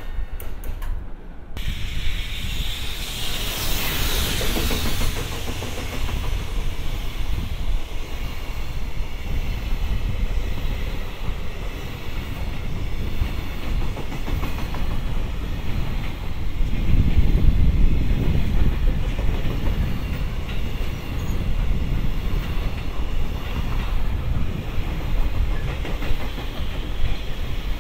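Long freight container train passing at speed: a steady rumble with the wheels clattering over the rail joints. It sets in suddenly about a second and a half in, with a rushing hiss soon after, and the rumble swells for a couple of seconds about two thirds of the way through.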